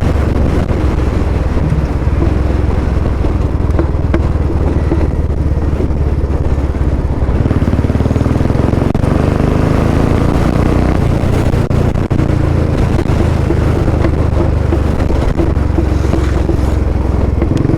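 Royal Enfield Bullet 350's single-cylinder engine pulling hard through a loud 'Long Punjab' aftermarket exhaust while riding down a straight road, its deep beat steady throughout, with wind buffeting the microphone.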